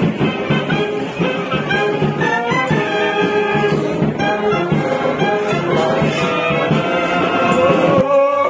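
Border Security Force military band playing, brass and saxophones carrying a melody over a steady beat. About eight seconds in the music cuts abruptly to a man singing with the band.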